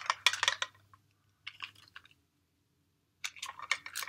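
Small plastic toy packaging being handled and opened: quick runs of sharp clicks and crinkles in bursts, with a pause of about a second just past the middle.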